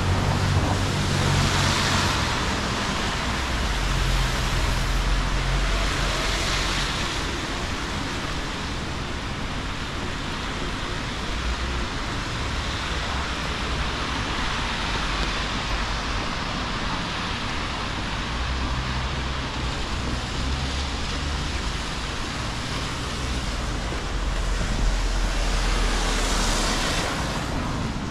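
Traffic on wet city streets: vehicles passing with tyre hiss, three passes standing out (about two seconds in, about six seconds in, and near the end) over a steady wash of rain and low engine rumble.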